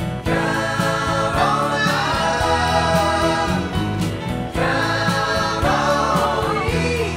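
Background music: a song with sung vocals over sustained bass notes and a steady beat.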